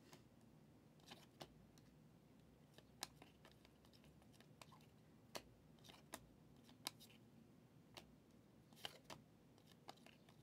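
Faint, irregular clicks and ticks of 2023 Prizm football trading cards being flipped one by one through a hand-held stack, over near silence.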